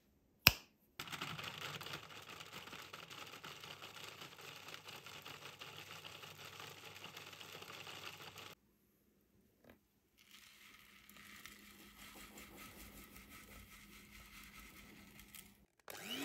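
Electric grinder running in two long stretches, pulverizing pieces of dark chocolate into powder, after a sharp click about half a second in. Right at the end an electric hand mixer starts with a rising whine.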